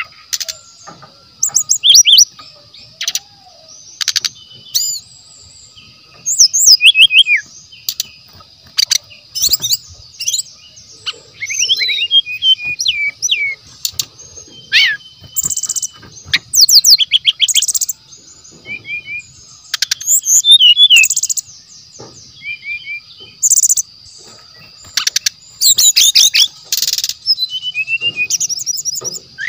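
Brown-chested jungle flycatcher singing loud, rapid, varied chirps, sharp notes and quick gliding whistles in repeated phrases, over a steady high-pitched tone.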